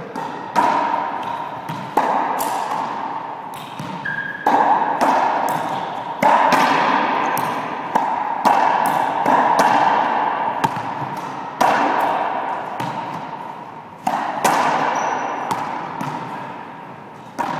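Racquetball rally: the ball cracking off racquets, the front wall and the floor in quick, irregular succession, each hit ringing on in the court's strong echo. A couple of brief squeaks cut in near the middle and near the end.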